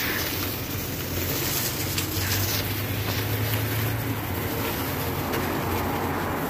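Road traffic passing along the street below: a steady low rumble with a rushing hiss that swells briefly in the first couple of seconds.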